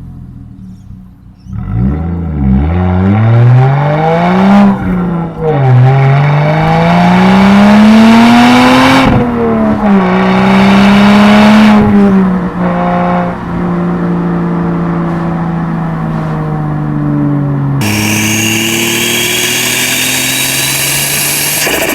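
Turbocharged Lexus IS200's 1G-FE straight-six through a 2.5-inch straight-pipe exhaust, revving hard: the engine note climbs and drops sharply several times, then holds and slowly eases down. A hiss joins in near the end.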